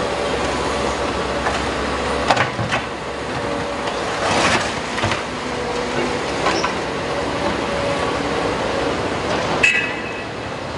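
Street roadworks: heavy diesel machinery running, with a low hum that stops about two seconds in and a handful of scattered clanks and knocks.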